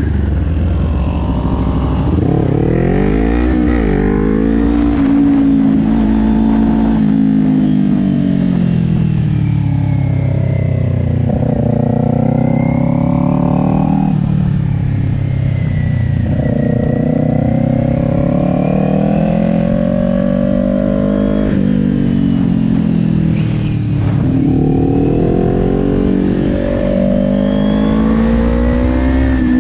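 Kawasaki Ninja 400's parallel-twin engine heard from on board at speed. Its pitch climbs and falls again and again as the throttle is opened and rolled off through the corners, with several quick drops in pitch.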